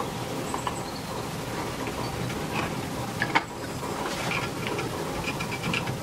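Soldering iron melting solder onto a copper pipe joint, the flux crackling and sizzling in small irregular pops, busier in the second half, with one sharper click a little after halfway.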